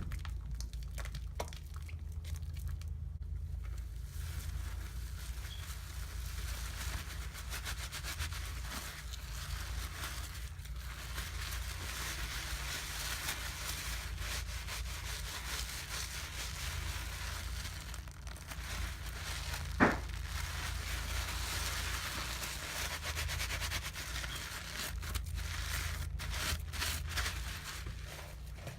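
Soapy lather being squeezed and rubbed, the foam crackling and fizzing continuously over a low steady hum. A single sharp click comes about two-thirds of the way through.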